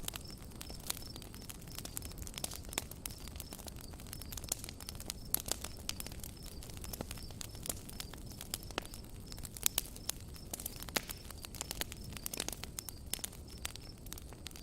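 Campfire crackling: sharp irregular snaps and pops of burning wood over a low rumble of flames. A cricket chirps steadily at a high pitch a few times a second.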